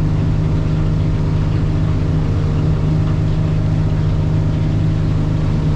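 F250 outboard motor running steadily at low speed, a constant low hum with no revving.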